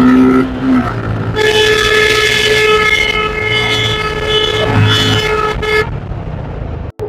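A vehicle horn sounds one long steady note for about four seconds, starting about a second and a half in, over the running engine of a motorcycle riding along a street.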